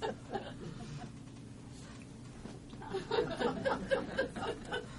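Quiet murmuring voices and light chuckling, fading to a quieter stretch after about a second and picking up again in the second half.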